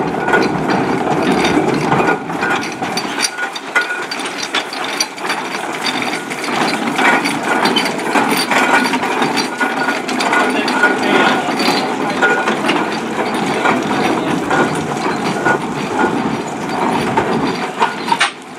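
Ruston Proctor steam traction engine on the move at walking pace: a continuous rapid mechanical clatter of its gearing and motion work.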